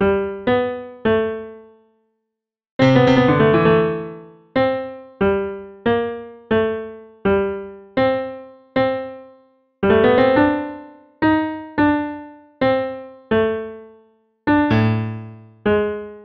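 Solo piano music: single notes and chords struck one after another at an unhurried pace, each ringing away before the next, with a short pause about two seconds in.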